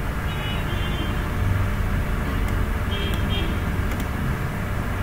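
Steady low background rumble with a few faint clicks in the second half: mouse clicks as the SQL query is run.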